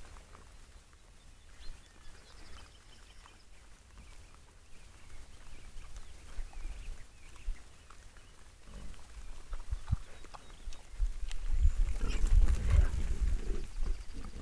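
Wild boars and their piglets grunting while they feed. The sound grows much louder from about eleven seconds in, with heavy low rumbling near the end.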